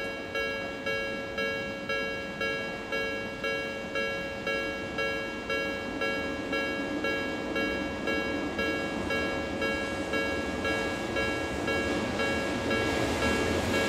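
Japanese level-crossing warning bell ringing steadily at about two strikes a second. Near the end the running noise of an approaching Odakyu 7000 series LSE Romancecar electric train grows louder beneath it.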